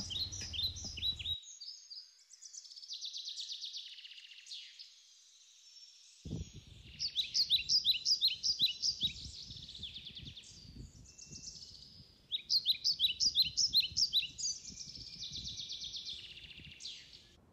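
Songbirds singing: short phrases of rapid repeated notes and trills, one after another with brief pauses. From about six seconds in there is also a faint low rustling underneath.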